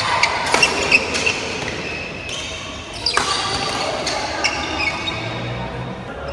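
Badminton rally: racket strings striking a shuttlecock in a quick exchange of several hits in the first second, then another sharp hit at about three seconds, with shoes moving on the court.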